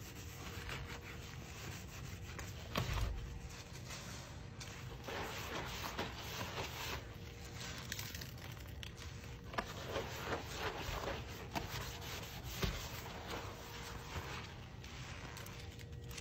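Soapy sponge rubbing and scrubbing over a chrome sink faucet in a continuous scratchy rasp, then squeezed out so foamy water runs into the basin. There is a dull bump about three seconds in.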